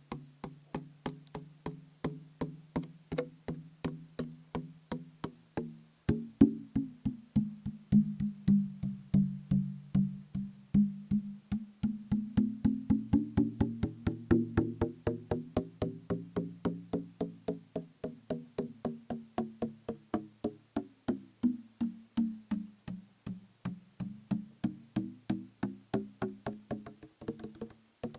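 Rapid, steady tapping on a plastic bottle partly filled with liquid, about three to four taps a second, each with a low pitched ring. The taps get louder about six seconds in, and their pitch slowly rises and then falls again.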